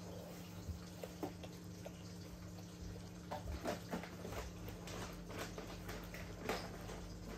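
Elderly long-haired dachshund eating soft homemade food from a bowl: irregular wet smacking, licking and chewing clicks, busier in the second half, over a steady low hum.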